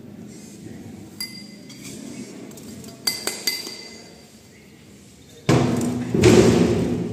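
Metal cup tapped against a metal sieve to knock crushed aggregate chips into it: a handful of sharp metallic clinks that ring briefly. About five and a half seconds in, a louder rough scraping and rubbing of metal and stone starts.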